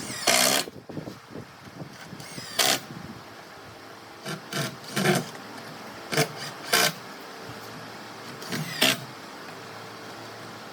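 Woodworking tool noise in short, irregular bursts of rasping, each under half a second, about six of them spaced a second or two apart.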